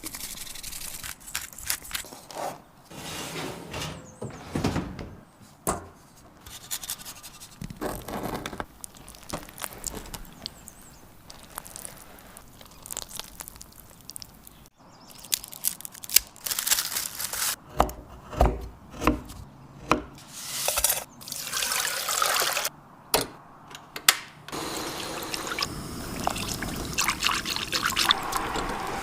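Kitchen sounds of cake preparation: a run of taps, clicks and scraping from utensils and bowls, with liquid being poured. It grows busier about halfway through, with a steadier pouring hiss near the end.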